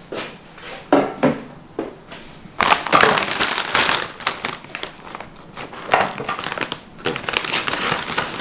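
A few short knocks, then loud crinkling and crackling of a large plastic bag of frozen corn dogs as it is lifted and handled, with scissors starting to cut into the bag near the end.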